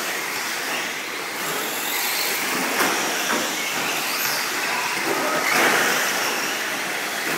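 1/10-scale electric off-road RC buggies racing on an indoor dirt track: a steady, noisy mix of motor and tyre sound, slightly louder about six seconds in.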